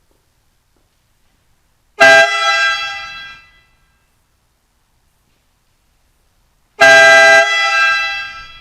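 Two loud blasts from a newly installed, low-cost compressor-fed air horn kit ('train horns'), one about two seconds in and one near the end. Each starts at full strength and tails off over a second or so.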